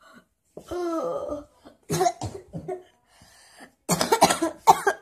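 A boy faking a cough to seem ill: a groan first, then short coughs about two seconds in, and a loud fit of coughing near the end.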